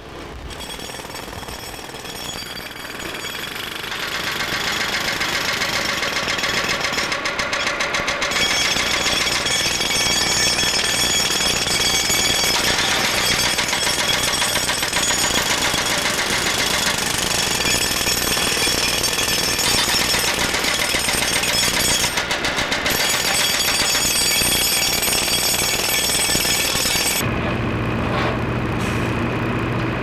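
Pneumatic jackhammers hammering rapidly, breaking up an old road surface. Near the end the hammering stops and a lower, steady machine hum takes over.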